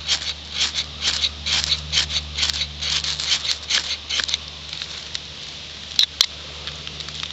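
Ferro rod (fire steel) struck again and again with a striker: a rapid series of rasping scrapes, about three a second, throwing sparks onto fungus tinder for roughly the first four seconds. Then two sharp clicks come about six seconds in.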